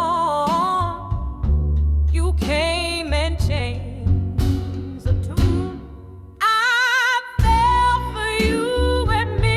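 Slow blues ballad: long, wavering melody notes over a steady bass line and drums.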